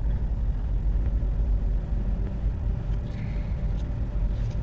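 Steady low background rumble, with a few faint clicks near the end.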